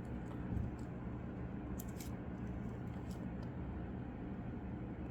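Steady low background hum with a few faint, light clicks, about two seconds in and again about three seconds in.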